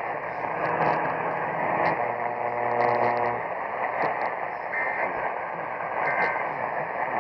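Radio static with a steady buzz for the first few seconds, then two short two-pitch data bursts about a second apart. These are the end-of-message codes that close an Emergency Alert System broadcast.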